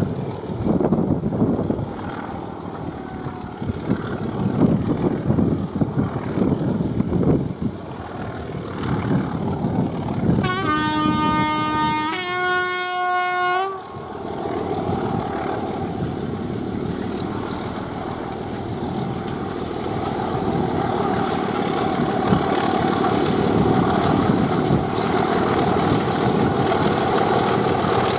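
Wind buffeting the microphone, then a BR Class 25 diesel locomotive sounds its two-tone horn about ten seconds in, a low note followed by a slightly higher one. After that its Sulzer diesel engine grows slowly louder as the train approaches.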